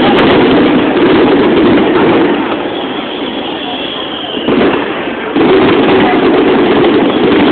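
Aerial fireworks going off in a dense, continuous run of bangs and crackle, easing briefly in the middle and returning with sudden loud bursts about four and a half seconds in and again about a second later.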